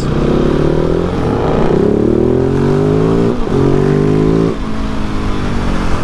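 Husqvarna 701 supermoto's single-cylinder engine accelerating hard through the gears. The pitch rises, drops at an upshift about a second in and again just after three seconds, then the throttle closes about 4.5 seconds in and the engine note falls off under wind noise.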